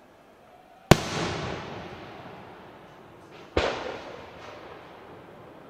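Two aerial fireworks shells bursting in sharp bangs about two and a half seconds apart. The first is the louder, and each trails off in a long fading echo.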